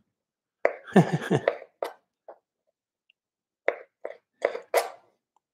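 A kitchen knife cutting small tomatoes on a plastic cutting board: a few light cuts about two seconds in, then four quick knocks of the blade on the board near the end. A brief murmur of a voice comes about a second in.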